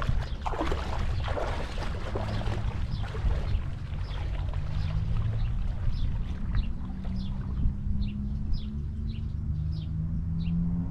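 Legs in waders splashing through shallow water for the first couple of seconds, then a distant motorboat engine droning steadily, rising in pitch near the end. Short high chirps repeat about twice a second through the second half.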